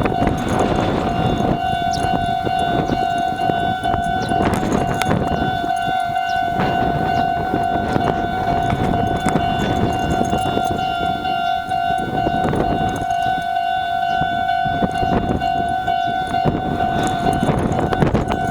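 Japanese level-crossing alarm ringing a steady, evenly pulsing electronic tone over the noise of a Meitetsu express train passing on the rails.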